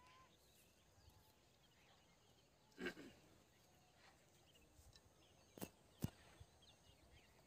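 Near silence outdoors with faint bird chirps; a soft knock about three seconds in and two small clicks a little later.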